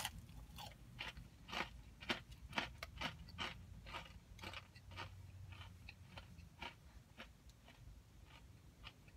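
A person chewing a crispy fried Popeyes boneless chicken wing, eaten without sauce: a run of crunches about two a second, loudest in the first few seconds and growing fainter.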